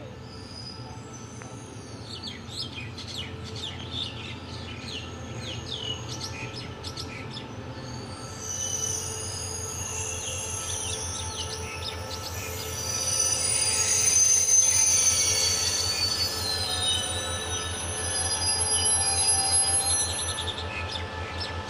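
SRT QSY-class diesel locomotive no. 5245 approaching slowly and braking to a stop, its engine running with a low, steady throb that grows louder as it nears. A high squeal sets in from about halfway through and is loudest a few seconds later as the train slows. Birds chirp during the first few seconds.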